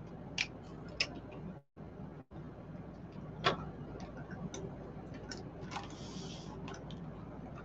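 Zip-top plastic bag being handled and opened by hand: scattered light clicks and crinkles, with one sharper click about three and a half seconds in.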